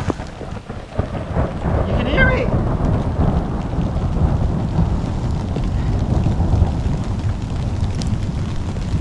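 Thunder rumbling low and long over steady rain, the rumble building about a second in.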